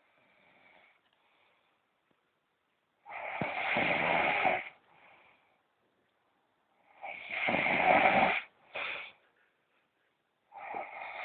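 A man snoring in a drunken sleep: three long snores, each about a second and a half and roughly three and a half seconds apart, with a short extra one right after the second.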